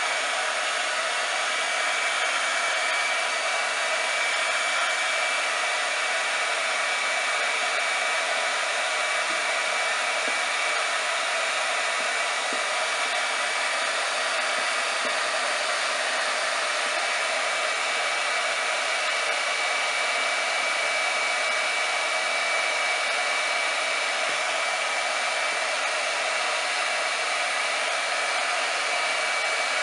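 Small handheld hot-air blower running steadily, an even rushing hiss with a thin motor whine, blowing warm air on a cigar box's paper label to soften its glue so it can be peeled off.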